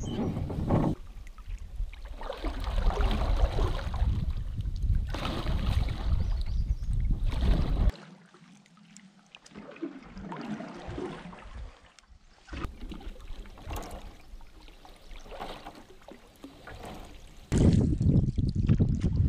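Canoe paddling: paddle strokes pulling through lake water, and water lapping along the hull. Wind rumbles on the microphone for the first half and again near the end, and is quieter in between.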